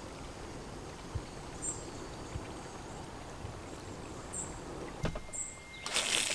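Water lapping gently against the hull of a small anchored boat, with a few faint, short high chirps, and a brief loud rushing hiss near the end.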